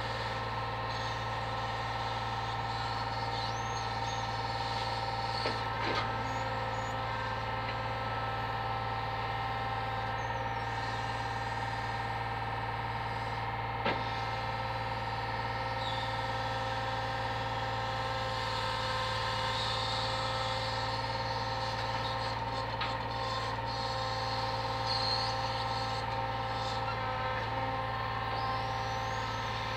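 Brick delivery truck's engine and its lorry-mounted hydraulic crane running steadily while the crane swings and lifts packs of bricks with its grab, a steady drone with a constant whine over it. Two sharp knocks, about six and fourteen seconds in.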